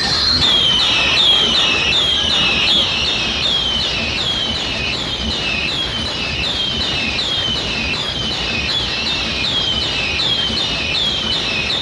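An electronic siren effect through a loudspeaker system: a high tone falling in pitch, repeated evenly about twice a second, over a steady noisy background.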